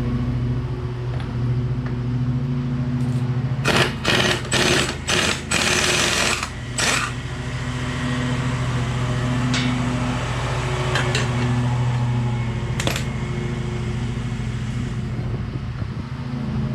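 A steady machine hum runs throughout. Over it come several short, loud bursts of an impact wrench spinning off the caster wheel bolts, bunched together about a third of the way in, with one more burst later.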